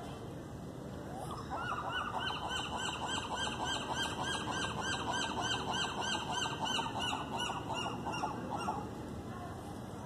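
A gull calling: a long, rapid series of loud, repeated call notes, about four a second, starting about a second and a half in and stopping near nine seconds. Steady background hiss runs underneath.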